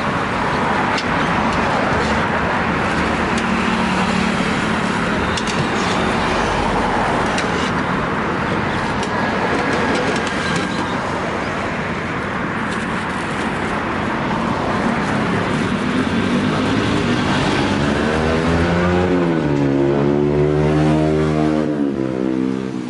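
Road traffic running steadily past, with a vehicle's engine coming up close in the last few seconds, its note dipping and then holding steady.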